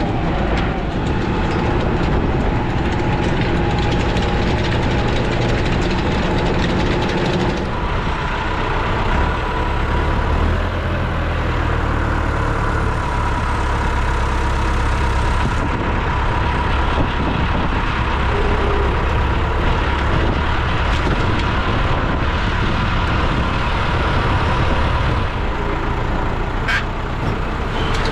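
Tractor diesel engine running steadily, its note shifting about eight seconds in.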